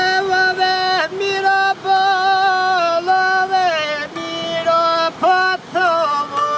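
A solo voice singing a slow folk melody in long, high, held notes, with ornamented turns between them, over a faint steady drone.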